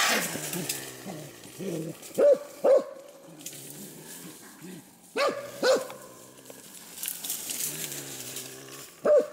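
Hunting dog barking in pairs, two double barks a few seconds apart and a single bark near the end, with leaves rustling underfoot between them.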